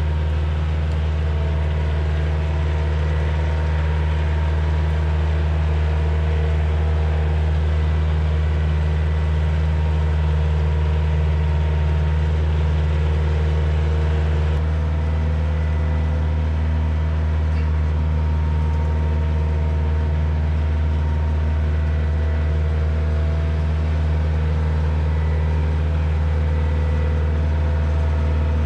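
Kioti DK40se tractor's diesel engine running at a steady speed while it moves a sawmill trailer. It holds one low, even note, and its tone shifts slightly about halfway through.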